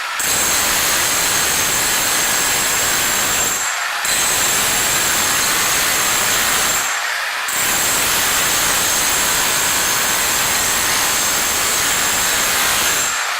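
Bauer SDS rotary hammer in chisel mode driving a welded 4-inch-wide scraper chisel along a concrete floor, lifting thinset. It runs in long stretches with short stops about four and seven seconds in and just before the end.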